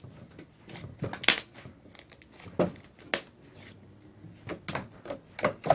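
Hand-played slime being squeezed and stretched, giving irregular clicks and small air-bubble pops.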